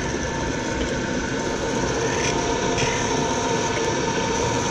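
Gallmeyer & Livingston surface grinder running, its grinding wheel spinning while the hydraulic power feed moves the table back and forth. It makes a steady whirring hum with a hiss, and a few brief louder swishes come about two seconds in and near the end.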